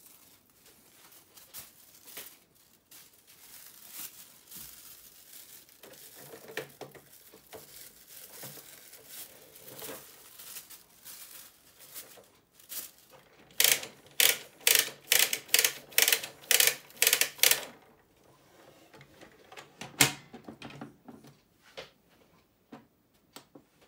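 Plastic parts of a Zebra ZD220 thermal transfer printer being handled as its ribbon is fitted: soft clicks and rustles, then a quick run of about ten sharp clicks. A single loud snap follows a couple of seconds later as the printer's top cover is shut.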